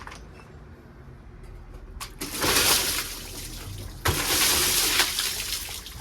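Water thrown from a bucket over a moped: two splashes, the second starting sharply about four seconds in.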